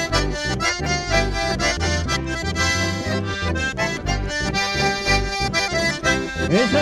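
Live chamamé played by a band: accordions carry the melody over acoustic guitar and electric bass, with a steady pulsing bass beat.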